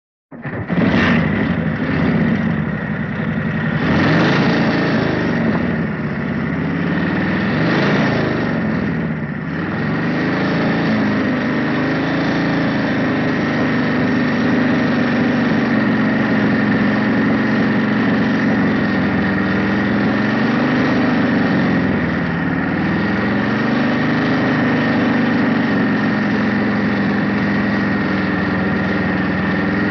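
Motorcycle engine starting up and being revved a few times in the first ten seconds, then settling into a steady idle with slight wavering in speed.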